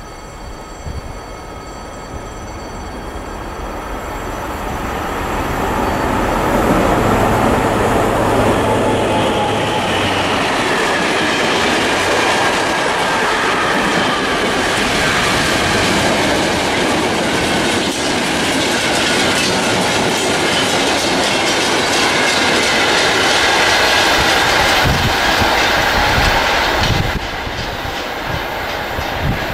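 Freight train headed by a BB 75000 diesel locomotive passing: the sound builds over the first several seconds as the locomotive approaches and goes by, then a long string of mixed wagons rolls past with the wheels clattering over the rails. It drops off abruptly near the end as the last wagon passes.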